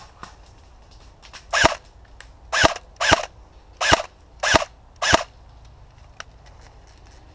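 Airsoft rifle firing six single shots in quick succession, each a sharp crack, about half a second to a second apart.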